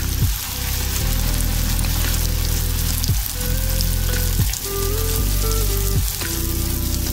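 Tilapia fillets frying in hot vegetable oil in a cast-iron skillet: a steady sizzling and bubbling. Background music plays underneath.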